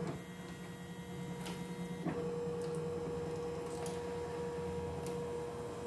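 CNY E960 computerised embroidery machine stitching out a design: a steady whirring run of the motor and needle bar as the embroidery unit moves the hoop, with a few light ticks.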